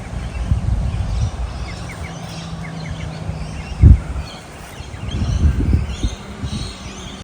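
Small birds chirping over a heavy, uneven low rumble, with one loud low thump about four seconds in.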